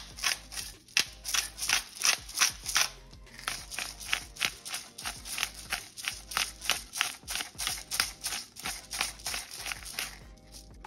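Hand-twisted salt grinder and then pepper grinder cracking grains, a rasping crunch about three times a second. The grinding pauses briefly about three seconds in and dies away near the end.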